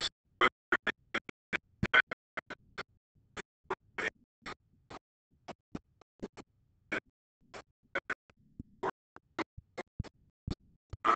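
Paper being handled close to a table microphone: irregular short crackles and scratches, several a second, with silence between them.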